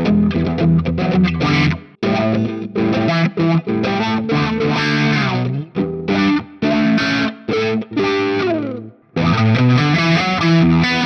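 Chibson Gold Top electric guitar played with distortion: riffs and chords with downward slides. The playing stops briefly twice, about two seconds in and again about nine seconds in.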